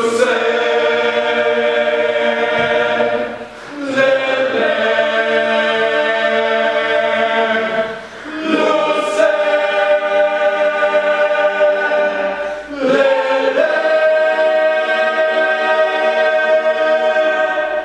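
A choir of young voices singing in four long phrases of held notes, each phrase broken off by a short breath pause about every four seconds.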